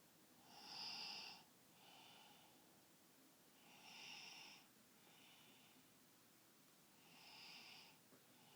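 Soft, breathy snoring in a steady rhythm: a louder snore roughly every three seconds (about a second, four seconds and seven and a half seconds in), each followed by a quieter breath.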